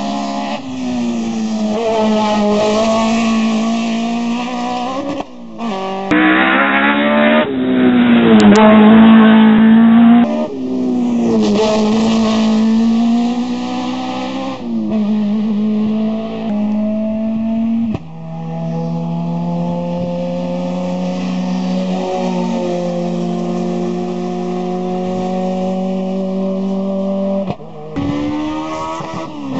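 Hillclimb race car engines at full throttle, revving up and dropping back with gear changes, heard in several short clips cut one after another; the loudest stretch is about six to ten seconds in.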